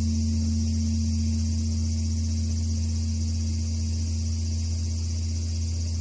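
Large bronze Korean Buddhist temple bell (beomjong) humming as it dies away after a strike: a low, steady hum that fades slowly.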